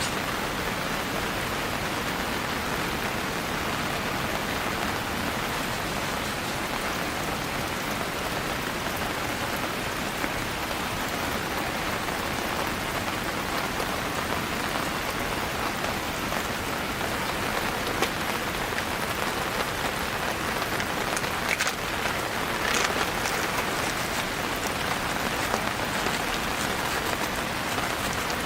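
Steady rain falling, with a few sharper drop hits standing out about two-thirds of the way through.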